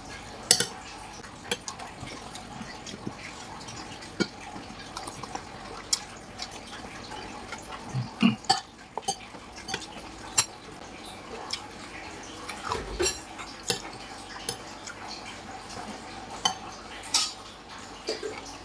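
Stainless spoon and fork clinking and scraping against a bowl of meatball soup as meatballs are cut and scooped, in irregular clinks.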